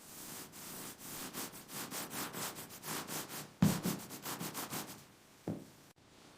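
A hand tool scraping as material is spread over a surface, in quick even strokes about three to four a second. There is a dull thump about three and a half seconds in and a shorter one near the end.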